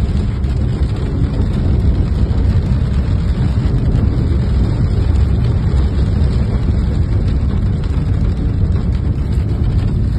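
Hail and heavy rain pelting a car's roof and windscreen, heard from inside the cabin: a loud, steady, dense patter of small impacts over a deep rumble.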